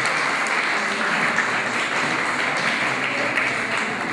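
Audience applauding steadily, many people clapping at once.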